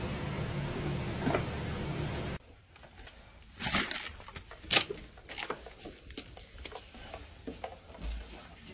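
A steady noise with a low hum that cuts off abruptly about two and a half seconds in. It is followed by quieter, irregular footsteps and knocks as someone walks carrying a basket, with one sharper knock about five seconds in.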